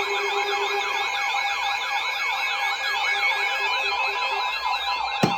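Several electronic sirens yelping at once, their fast rising-and-falling tones overlapping over a few steady tones. A low steady tone stops about a second in, and there is a single sharp knock near the end.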